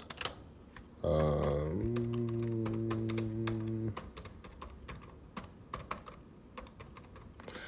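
Typing on a computer keyboard: scattered key clicks throughout. About a second in, a man's drawn-out, steady filler vocalisation is held for nearly three seconds while he types.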